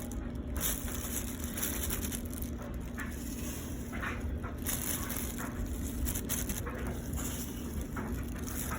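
Steady low background hum with a faint steady tone, over which come soft scattered clicks and rustles of hot chicken pieces being laid onto the sandwich.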